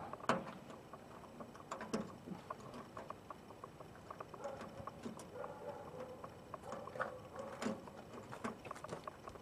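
Irregular light clicks and taps of fuel-line fittings and a bracket being handled and pushed into place, with a few faint squeaks.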